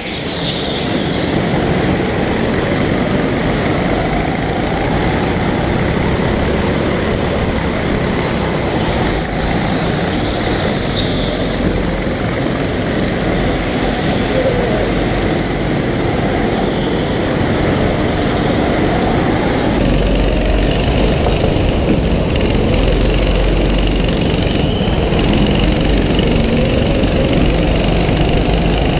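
Go-kart engines racing on an indoor track, heard from on board: the kart's own engine revs up and down through the corners, with other karts' engines running close by. A few short high squeals cut through, and the engine sound changes about twenty seconds in as the audio switches to another kart.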